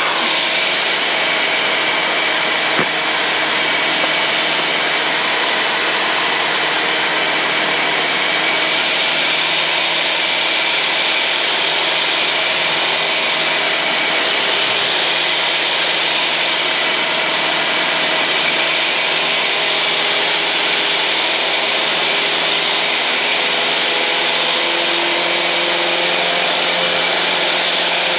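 Steady engine and propeller noise of a 1978 Cessna 172N in cruise, with its four-cylinder Lycoming engine, heard through the headset intercom as an even hiss with faint steady hums underneath. Nothing changes throughout.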